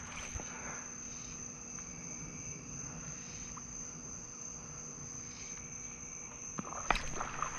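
Steady high-pitched chorus of crickets, an unbroken trill, with a few sharp clicks near the end.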